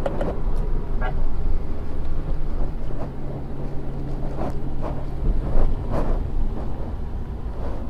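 Car on the move, heard inside the cabin: engine and road noise, with a steady engine note for a couple of seconds in the middle and a few short knocks and rattles.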